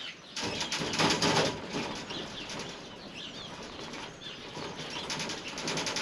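Rabbits scuffling and scrabbling in a wire cage during breeding, in irregular bursts, louder near the start and again near the end. Faint birdsong in the background.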